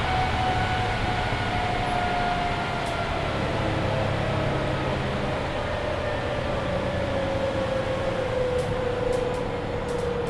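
Mercedes-Benz Citaro C2 hybrid city bus driving, heard from inside: a low engine hum under a drivetrain whine that falls steadily in pitch as the bus slows down. A few faint clicks come near the end.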